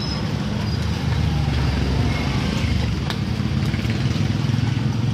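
Small engine idling steadily, a little louder from about a second in.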